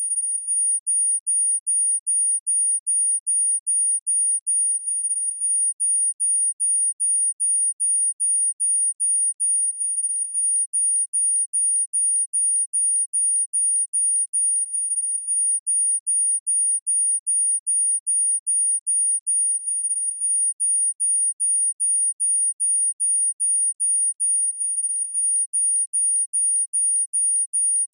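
A single very high-pitched electronic beep, one pure tone pulsing on and off evenly a few times a second without a break.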